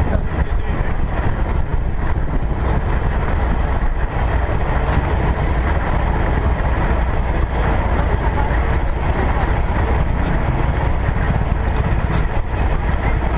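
Steady low rumble of a classic American car driving slowly, picked up by a camera mounted on its hood, with no clear change in pace or any sharp event.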